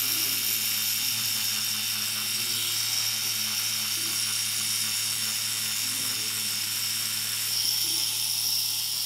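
Tattoo machine running steadily as colour is laid in, an even electric buzz with a low hum and a high whine that doesn't break.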